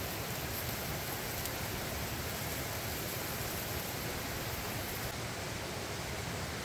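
Steady, even rushing hiss of water in the open air, from rain or a nearby stream, with no changes in level.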